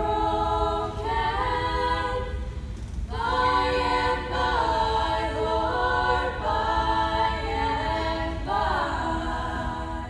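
A choir singing a cappella, holding chords in phrases a few seconds long with short breaks between them.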